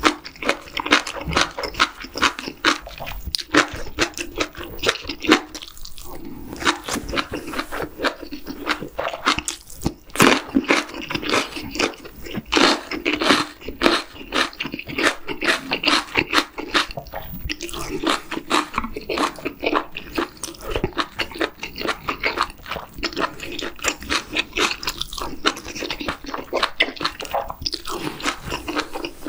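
Close-miked ASMR eating: chewing spicy stir-fried webfoot octopus with bean sprouts and rice, with a steady run of wet crunches, smacks and mouth sounds, and the odd click of wooden chopsticks against the pan.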